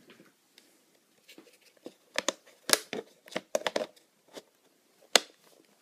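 Plastic being handled: a run of sharp, irregular crackles and clicks, loudest in the middle, with one last sharp click near the end.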